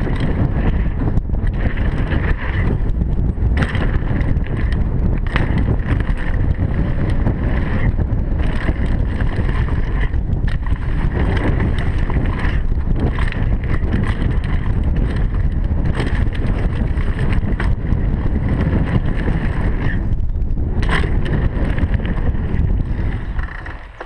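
Downhill mountain bike descending fast on a dirt trail: steady wind rush on the camera microphone and tyre rumble, with frequent knocks and rattles from the bike over bumps. The rush fades away near the end.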